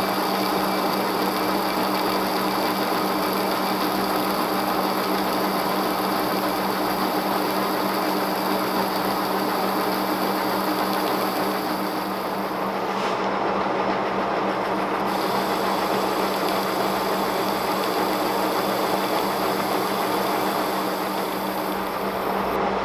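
Monarch 18CY engine lathe running steadily, its geared headstock humming, while the carriage power-feeds a light five-thousandths cut along a stainless steel bar. A test cut for checking taper and headstock alignment.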